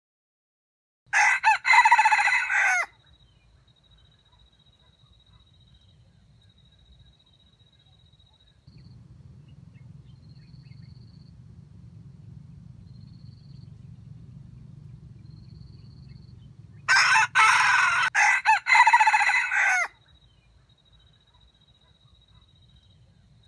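Red junglefowl rooster crowing twice, about fifteen seconds apart, the second crow longer and broken up.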